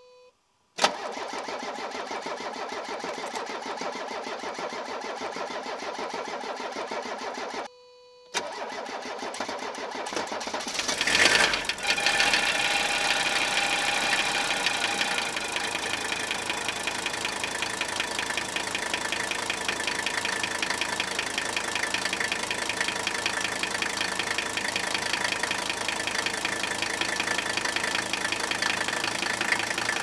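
A Mercedes OM617 five-cylinder turbodiesel in a 1982 W123 300D is cranked on the starter for several seconds, with a short break, because air is still in the fuel system after fresh injector nozzles. It catches about eleven seconds in, rises briefly, then settles to a steady idle with a rhythmic diesel knock.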